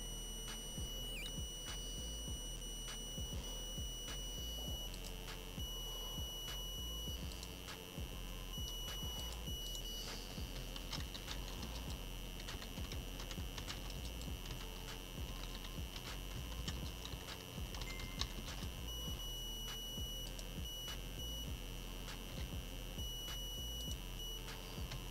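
Scattered keystrokes on a computer keyboard over a steady high-pitched electronic tone that keeps switching between a thin whine and a fuller buzz.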